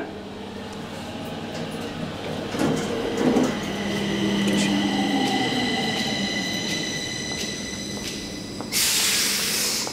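Metro train at the platform: a steady multi-tone electric whine with a low hum that swells and fades, followed near the end by a loud burst of hissing air. A brief rumble comes about three seconds in.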